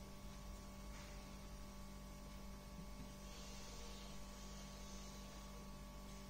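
Low, steady electrical mains hum. From about three seconds in, a faint soft hiss of a marker drawing across a whiteboard.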